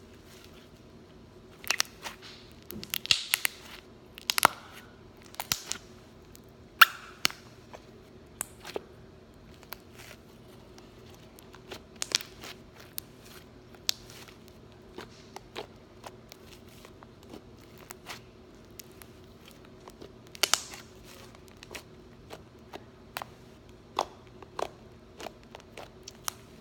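Butter slime being squeezed and poked by hand for ASMR, making scattered sharp clicks and crackling pops, with a cluster in the first few seconds and another about twenty seconds in.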